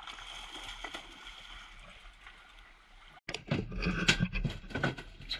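Steady rush of sea water and boat noise. About three seconds in, it gives way to a rapid, irregular run of loud knocks and thuds as a freshly landed mahi-mahi thrashes and is handled on the boat's deck.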